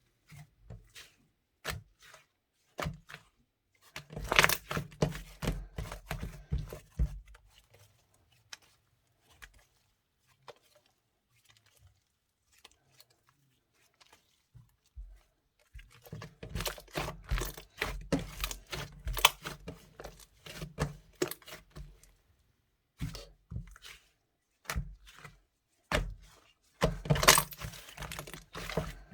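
Hands squishing, pressing and poking a glittery clay slime, making clusters of wet sticky clicks and pops. They come in busy bursts with a sparser, quieter stretch in the middle.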